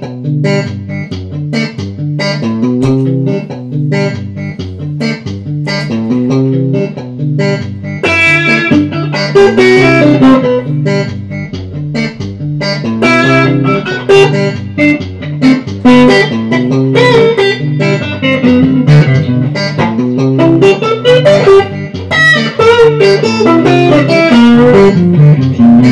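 Telecaster-style electric guitar played through a Hughes & Kettner StompMan amp into a small Marshall cab with a 10-inch speaker. It is playing a melodic piece, with a picked bass line under the melody and quick runs in places.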